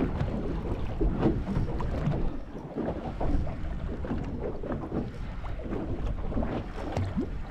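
Wind rumbling on the microphone and water lapping against a small boat's hull, with scattered faint knocks and clicks.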